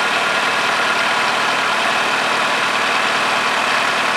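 Nissan GA15DE 1.5-litre four-cylinder petrol engine idling steadily, with piston-ring decoking fluid in its cylinders. Its second cylinder is low on compression, 8 against 14 on the others, which the owner puts down to worn-out rings.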